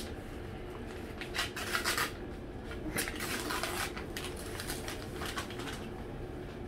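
A foil-lined paper food bag crinkling and rustling as it is handled and peeled open, in two bursts of crackling about one and a half and three seconds in, then fainter rustles.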